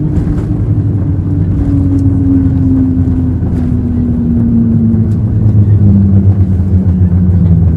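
Boeing 737-700 heard from the cabin during the landing rollout: the CFM56-7B engines' hum falls slowly in pitch as they spool down, over a steady low rumble of the aircraft rolling on the runway.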